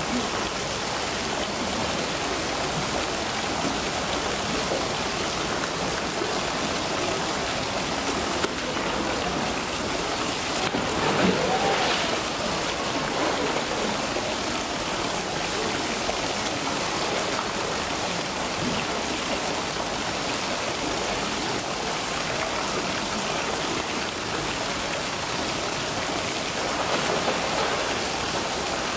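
Steady rush of running water, with a brief louder sound about twelve seconds in.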